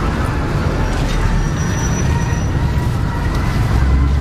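Steady road traffic noise from vehicles running along a busy street, a continuous sound weighted toward the low pitches.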